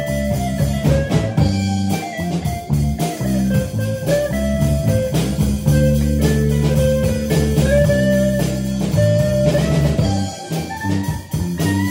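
A small rock band playing live: electric guitars holding long notes over a drum kit.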